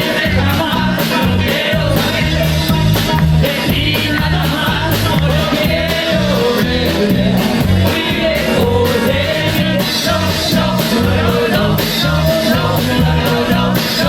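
Rockabilly band playing live: a bass line stepping through notes under a steady drum beat, with a voice singing the melody over it.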